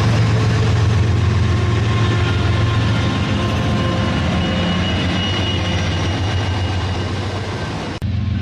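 Rail King toy train running with a steady, low engine-like hum. It cuts out suddenly for an instant near the end and starts again.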